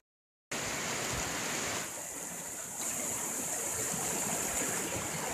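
Fast floodwater rushing and churning down a street in a steady, even rush. It starts after a brief half-second gap of silence.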